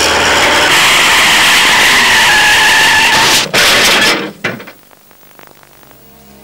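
Loud rushing skid-and-scrape noise from a forklift truck in an overturning test, with a faint falling squeal, cut off abruptly about four seconds in; after that it is much quieter, with faint steady tones.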